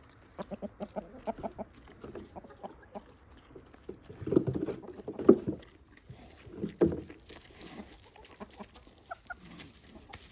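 Chickens clucking, a quick run of short notes about a second long near the start and scattered notes after, with a few louder muffled bumps around the middle.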